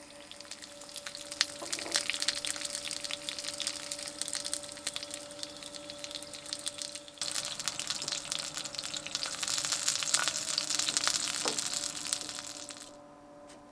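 Crackling, sizzling noise with many small pops, louder from about seven seconds in and cutting off suddenly near the end, over a faint steady hum.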